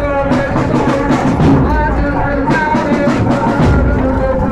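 A rousing Husseini chanted poem: a chanting voice over a steady drum beat.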